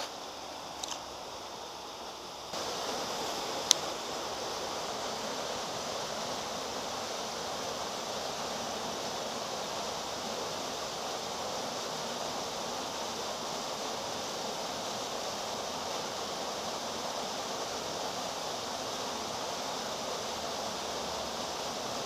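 Steady rushing of stream water, stepping up louder about two and a half seconds in and then holding even. A single sharp click comes shortly after the step.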